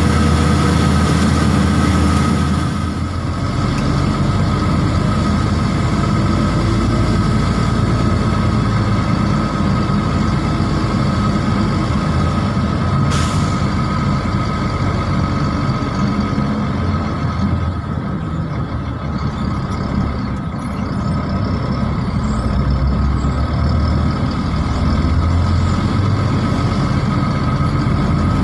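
Tractor-trailer truck's diesel engine running steadily, with a short hiss of air from the air brakes about halfway through.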